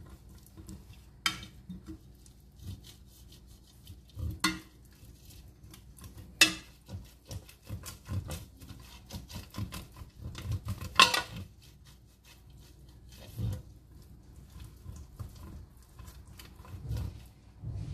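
A fluted metal bundt cake pan being greased with a brush: soft brushing and rubbing against the pan's inside, broken by irregular knocks and clatters as the pan is turned and set against the counter. The loudest knocks come about six and eleven seconds in.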